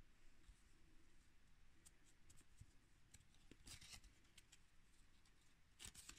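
Near silence, with faint rustling and scraping of a stiff laminated card being handled and turned over, loudest briefly about midway and again near the end.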